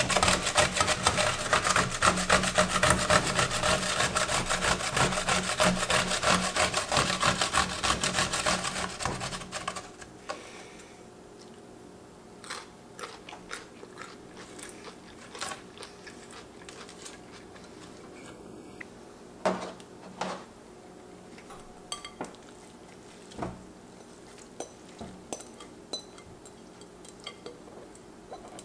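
An English cucumber being grated on a stainless steel box grater into a glass bowl: rapid, rasping back-and-forth strokes for about the first nine seconds. The grating then stops, leaving scattered light taps and knocks.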